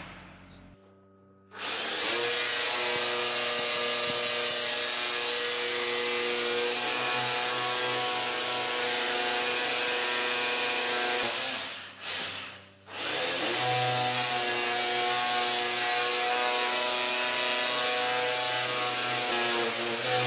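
Handheld electric drill boring a hole into the wall. It starts about a second and a half in and runs steadily, stops for about a second two-thirds of the way through, then runs again.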